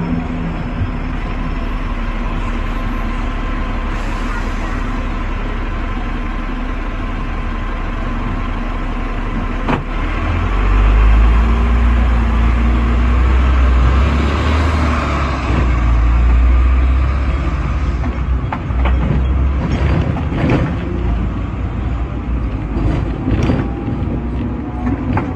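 Running noise heard on board a Hong Kong sixth-generation double-decker tram in motion: steady motor and steel-wheel-on-rail sound. A deep rumble swells for several seconds about halfway through, and sharp clicks and rattles from the wheels and body come in near the end.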